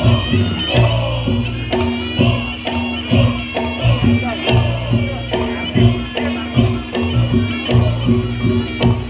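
Reog Ponorogo accompaniment music played live: a shrill slompret reed melody over a steady drone, with repeated drum strokes.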